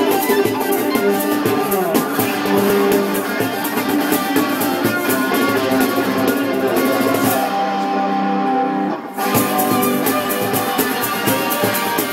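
Street band playing live, with plucked strings over a steady percussion beat. The percussion drops out for a moment about seven and a half seconds in, then comes back.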